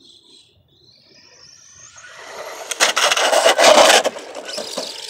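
Arrma Granite 4x4 RC truck with a 3900 kV brushless motor whining and rising in pitch as it speeds up. Then comes a loud rush of tyres on rough asphalt, with knocks and scraping as the truck hits the pavement and lands, easing off near the end.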